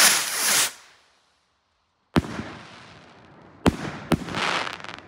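Ghost Killer skyrockets: one whooshes up at the start, then three sharp bangs as rockets burst about two seconds in and twice more a second and a half later, the last bang trailing off in a hiss.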